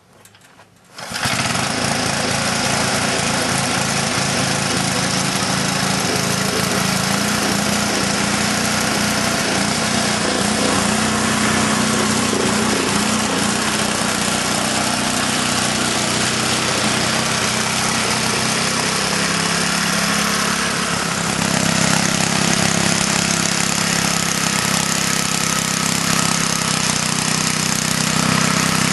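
Small Briggs & Stratton engine on an antique Jari sickle bar mower catching about a second in and then running steadily under load, with the reciprocating sickle bar chattering as it cuts through bamboo.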